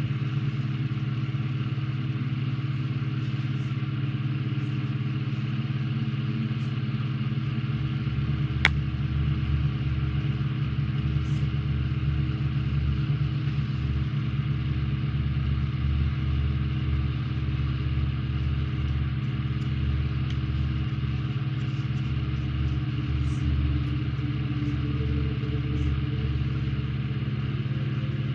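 A steady machine hum, like a small motor or fan running, even in level throughout, with one sharp click about eight and a half seconds in.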